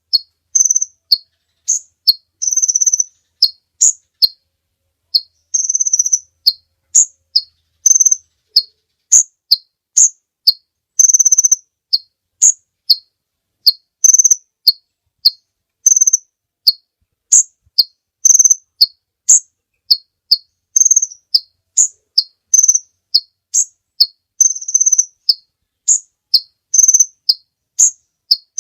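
Sunbird (kolibri ninja) singing: a rapid, continuous run of short, sharp high chirps alternating between two pitches, two or three notes a second, broken by a few longer held notes and buzzy trills.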